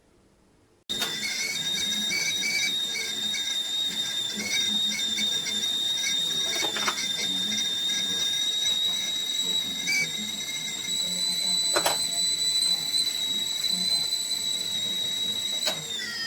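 Amazon Basics 2.2 L stainless steel stovetop kettle whistling at the boil: a loud, steady, high whistle that starts suddenly about a second in and drops in pitch near the end. A few sharp clicks come through it.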